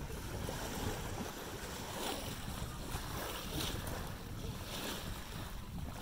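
Wind buffeting the microphone in an uneven low rumble, with water lapping below a wooden jetty on open lake water.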